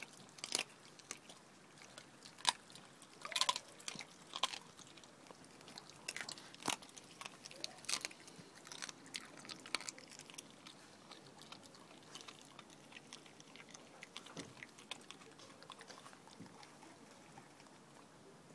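Spaniel chewing and biting on a piece of raw chicken, with irregular sharp crunches. The crunches come thickly for the first half and grow sparser later on.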